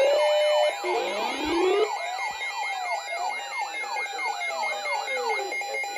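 Electronic siren-like alert tones: several overlapping pitches sweeping up and down rapidly, about three times a second, over steady high tones.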